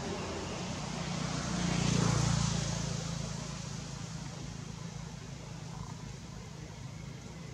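A motor vehicle passing by, its engine and road noise swelling to a peak about two seconds in and then slowly fading.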